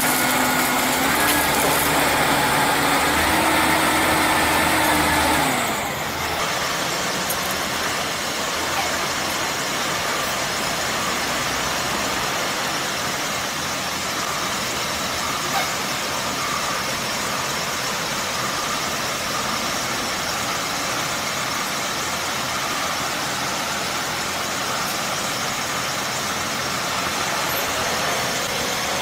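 A small engine running at a steady pitch, stepping up in pitch twice, then cutting off about six seconds in; after that a steady rushing noise with no clear tone.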